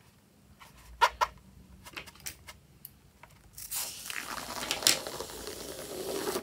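A few sharp clicks of the balloon being handled, then a steady crackling, spattering squirt as the balloon is squeezed and its yellow contents spurt out of the straw nozzle onto white foamy slime. It cuts off suddenly at the end.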